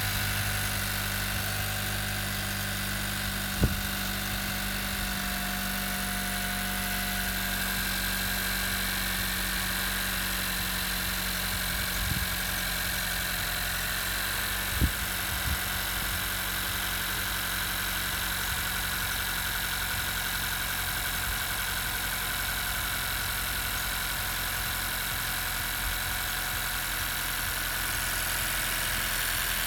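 Honda Civic 1.5-litre turbocharged four-cylinder engine idling steadily on a cold start, with a steady high-pitched whine over the idle: the cold-start noise the owner takes for a problem. Three short sharp clicks sound a few seconds in, about 12 seconds in and about 15 seconds in.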